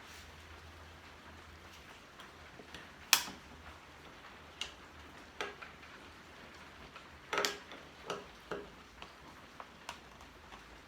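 Irregular clicks and light knocks of hand tools and metal mounting hardware being worked: the sharpest about three seconds in, a short cluster about seven seconds in, and smaller taps between.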